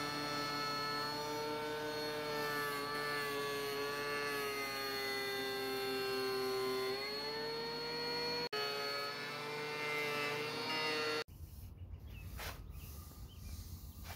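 Benchtop thickness planer running with a steady high whine; the pitch sags slowly as a white oak board feeds through and recovers about seven seconds in as the board clears. Near the end the whine gives way to a low rumble with a brief knock.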